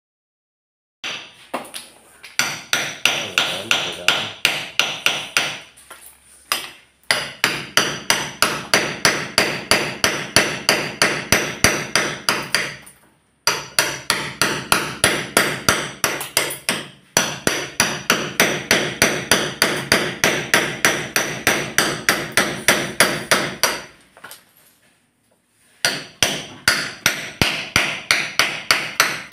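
A hammer striking a chisel held against a wooden door frame, in rapid, steady blows of about three to four a second. The runs of blows break off briefly a few times, with a longer pause near the end.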